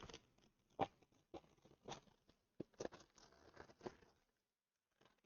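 Faint, irregular scrapes and taps of a cardboard shipping box being handled and cut open with a knife, stopping about four seconds in.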